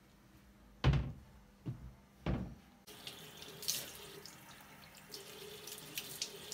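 Three short knocks, then a tap turned on about three seconds in, water running steadily into a sink.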